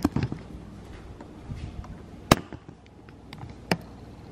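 Sharp knocks and clicks of a phone being handled and set down on a hard countertop, then two more sharp knocks, a loud one about two seconds in and another near the end, against a quiet room.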